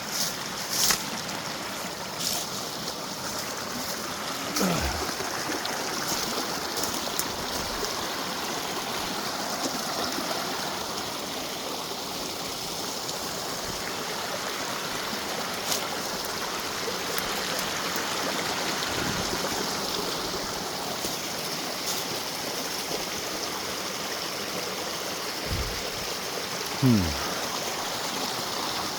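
Creek water running steadily over rocks in a narrow ravine, with a few brief knocks and scrapes, the loudest near the end.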